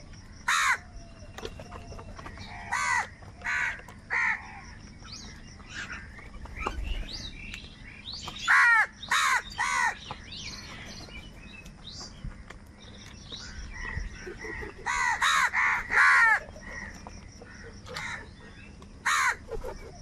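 A flock of house crows cawing: loud harsh caws one at a time or in quick runs of two or three, with softer calls between them.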